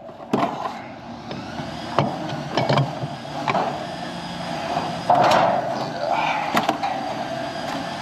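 Irregular knocks and clatter, about six in all, over a steady background noise.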